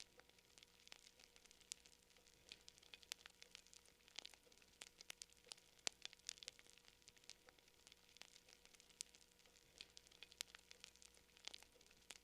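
Wood campfire crackling: quiet, irregular pops and snaps, several a second, over a faint steady hiss.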